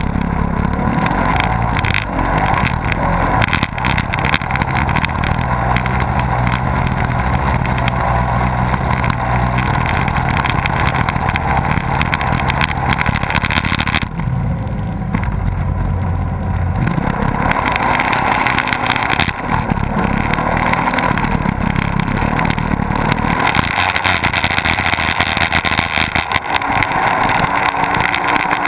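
Twin Mercury OptiMax two-stroke outboard motors running at high speed on a racing powerboat, heard right behind the engines with wind and water spray rushing past. The higher rushing drops away for a couple of seconds about halfway through.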